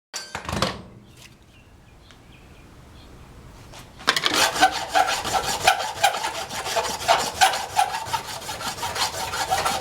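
Hand-worked abrasive rubbing on plastic: rapid rasping strokes, about three a second, starting about four seconds in. A short scrape comes right at the start.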